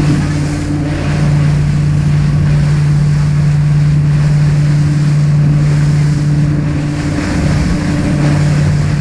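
Motor of a rigid-hull inflatable boat running at a steady cruising speed, a constant low drone that wavers briefly near the end, over the rush of water against the hull and wind on the microphone.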